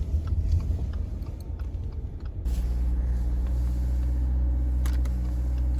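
Vehicle engine and road rumble; about two and a half seconds in, the uneven rumble settles into a steady, even engine hum.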